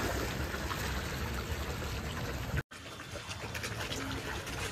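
A steady rushing noise like running water. It cuts out for an instant about two and a half seconds in, then carries on.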